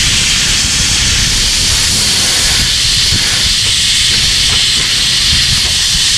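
Compressed air hissing steadily from an air comb, a plugged tube with holes in its side, as it blows packed dirt and debris out of a tractor's A/C condenser.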